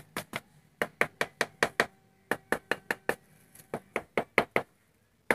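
A wooden block knocking on a plywood-framed mould of freshly poured wet cement: quick runs of sharp knocks, about five a second, with short pauses between the runs. The tapping settles and levels the cement in the frame.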